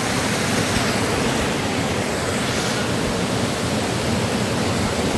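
Rushing water of a mountain stream pouring over a small weir, a steady even rush.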